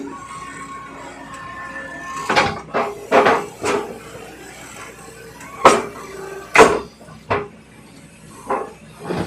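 Excavator-mounted small rotary drilling rig at work: heavy metal clanks and knocks, about nine at irregular intervals, over a steady machine hum, with a steady high whine during the first two seconds.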